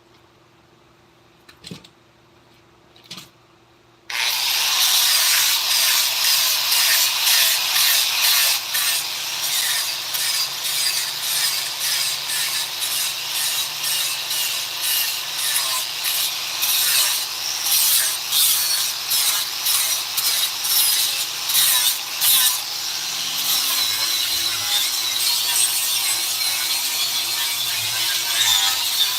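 Two light knocks, then about four seconds in a tool starts working wood: a loud, continuous rough scratching that swells and dips stroke by stroke.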